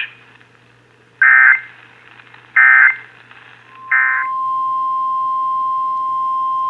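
Three short bursts of Emergency Alert System SAME digital data tones, each about a third of a second and evenly spaced, closing out the preceding alert. Just under four seconds in, the steady single-pitch 1050 Hz NOAA Weather Radio warning alarm tone begins and holds.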